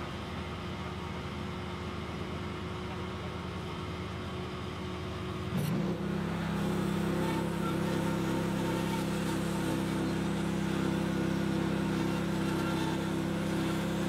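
Engine of a Norwood LumberPro HD36 portable bandsaw sawmill running; a little over a third of the way in there is a short click and the engine settles into a louder, steady note that holds to the end.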